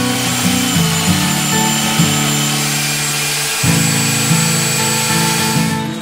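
Belt sander, a handheld one clamped on its side as a stationary sander, running while the curved edge of a wooden board is sanded against the belt; the sanding noise stops near the end. Background music plays throughout.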